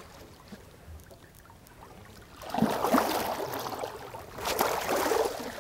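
Water splashing and sloshing against the side of a boat as a white sturgeon is hauled up out of the river. It comes in two bursts, one about two and a half seconds in and another near the end.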